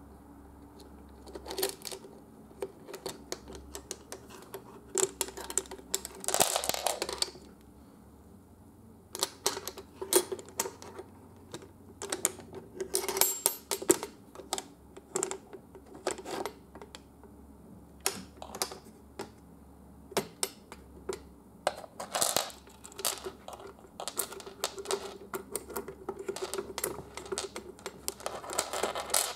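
Metal latches, a hook and a slide bolt on a wooden busy-board house being worked by hand: irregular clicks and clacks with a few short scrapes, and a door swung open near the end.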